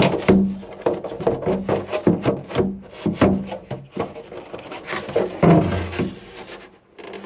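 Plastic shower tray being pushed and settled into a plywood enclosure: a quick, irregular run of knocks, bumps and scrapes of plastic against wood, with a louder thud about five and a half seconds in.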